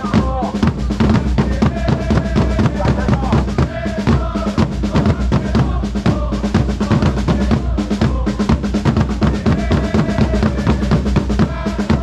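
A football supporters' drum line beats marching snare and bass drums in a rapid, steady pattern, with a stand full of fans singing a chant over it.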